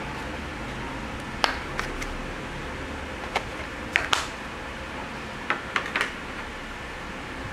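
Sharp plastic clicks and taps, in small groups of two or three, from handling the LG G5 spare-battery charging case and its grey cover, over a steady background hiss.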